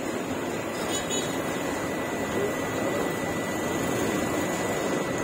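Steady street ambience: a continuous, even rushing noise with faint voices mixed in, and a brief high chirp about a second in.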